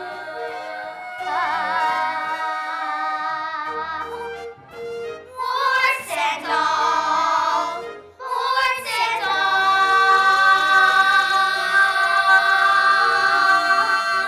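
A young female voice singing a musical-theatre song over an instrumental backing track, breaking twice briefly and then holding one long final note through the last five seconds.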